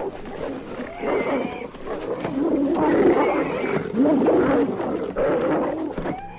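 Hunting dogs and a wild boar fighting: rough snarling and growling calls, loud and nearly continuous, strongest in the middle.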